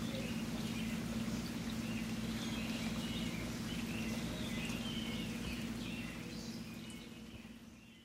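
Birds chirping over a steady rush of running water, the whole fading out near the end.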